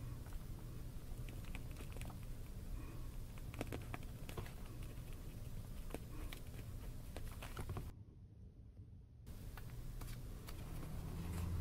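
A pen writing on a small spiral-bound paper notepad: the tip scratching across the paper, with many light irregular ticks as strokes start and stop, over a low steady hum. The sound drops out briefly about eight seconds in.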